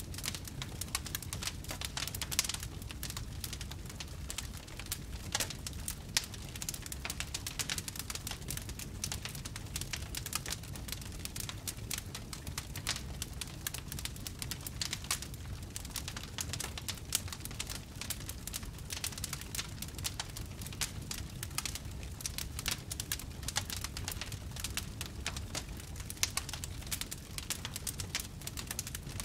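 Wood fire in a fireplace crackling and popping: a dense, irregular run of small snaps over a low steady rumble, with a few louder pops.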